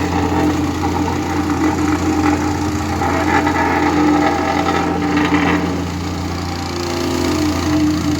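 Heavy asphalt-paving machinery running steadily, a constant deep engine hum with a short burst of higher rattling about five seconds in.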